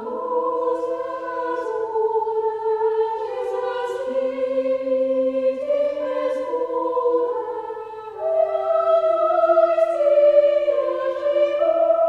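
Slow outro music of long, overlapping held notes in several parts, slowly changing chords, with a brief dip in loudness about two-thirds of the way in.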